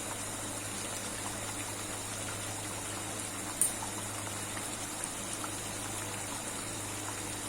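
Chicken kosha gravy simmering in a pan on the stove: a steady hiss, with one small click about three and a half seconds in.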